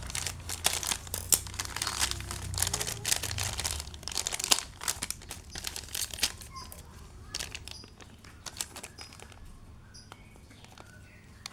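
Parcel packaging crinkling and rustling as it is handled and torn open by hand. Dense crackles for about six seconds, then only scattered ones.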